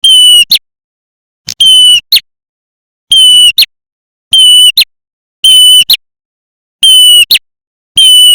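Looped recording of a prenjak (small Southeast Asian warbler) lure call. A short piping phrase, held near one pitch and ending in a sharp flick, repeats about seven times at roughly one-second intervals, with dead silence between.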